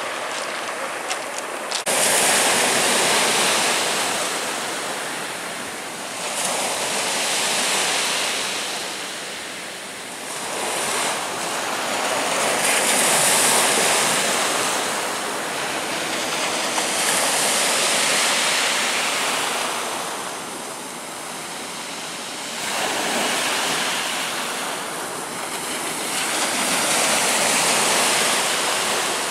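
Black Sea surf: waves breaking on the shore, the rush of water swelling and falling back every few seconds.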